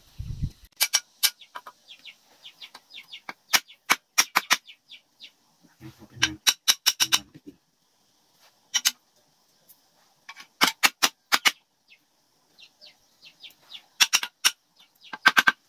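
Sharp knocks of a tool striking a wooden pole, coming in quick bursts of several strikes with short pauses between.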